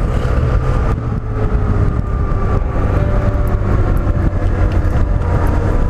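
Yamaha TMAX maxi-scooter ridden at a steady speed. Wind noise rushes over the camera microphone, with the parallel-twin engine's steady drone underneath.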